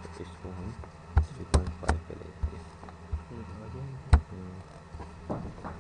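Computer mouse button clicks: a string of sharp, irregularly spaced clicks, the loudest a little after four seconds in, while a project is right-clicked and a menu item chosen.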